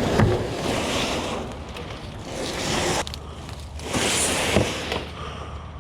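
Rustling and scraping in brush and dead leaves, in two long spells, the second starting about four seconds in, as the boats are dragged into the undergrowth and covered with branches.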